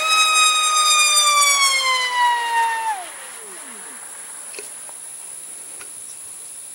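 2150 kV electric motor and propeller of a high-speed RC foamboard plane whining loudly overhead. The pitch sags slowly for about three seconds, then slides steeply down and fades as the motor winds down.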